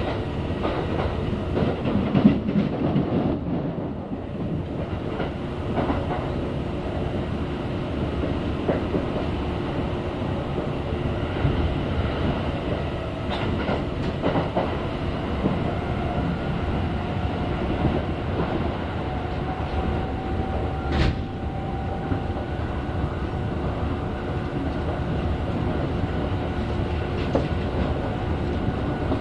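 Kintetsu express electric train running at speed, heard from inside the carriage: a steady rumble of wheels on rail with scattered clicks over rail joints. A faint whine rises slowly in pitch through the middle, and one sharp click comes about three quarters of the way through.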